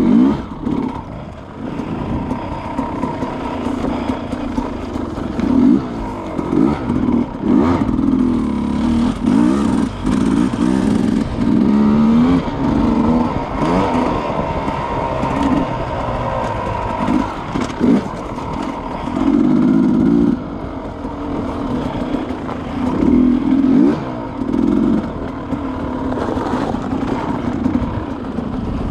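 Two-stroke enduro dirt bike engine being ridden hard. The revs climb and drop over and over with the throttle, with several louder bursts of acceleration.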